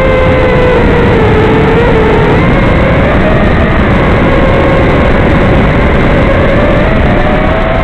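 Brushless motors and propellers of a 5-inch FPV racing quadcopter whining, the pitch wavering with the throttle and rising then dropping near the end, over a steady hiss.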